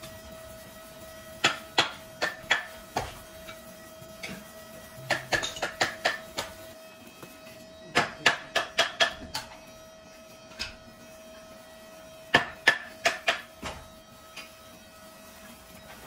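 A bundle of brush bristles bound in a metal ring being knocked down against a stone slab to even the ends. It comes in four runs of quick, sharp knocks.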